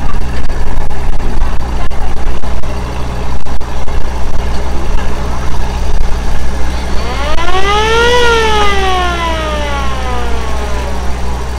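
Boat engine running steadily under way, its drive belt newly replaced. Past the middle, a siren-like tone rises and then falls in pitch once over about four seconds.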